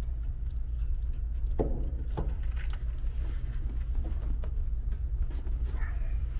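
Scattered light clicks and metallic clinks of hands and tools working loose the factory lift pump on a Cummins diesel engine, ending as the pump comes out with its steel fuel line, over a steady low hum.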